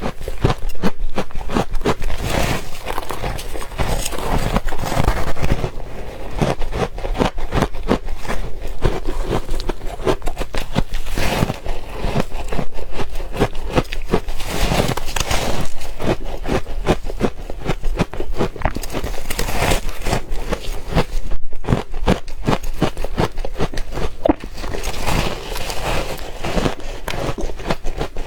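Soft, powdery ice with crushed ice being bitten and chewed: a dense, unbroken run of crunching and crackling.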